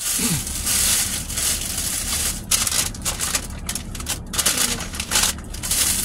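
Takeout food packaging being handled: rustling and crinkling in irregular bursts with short breaks.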